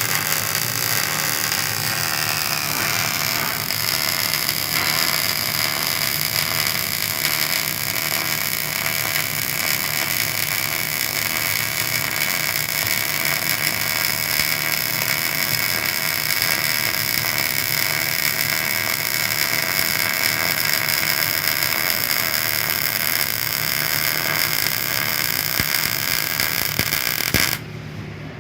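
MIG welding arc from a Miller CP-302 constant-voltage DC power source, crackling steadily through one long continuous bead; it cuts off suddenly about a second before the end.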